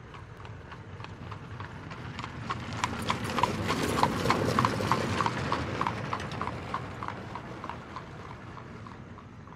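A buggy horse's hooves clip-clopping on a paved road at a steady pace, about two to three strikes a second over a low rumble. The beats grow louder to a peak partway through, then fade as the buggy passes.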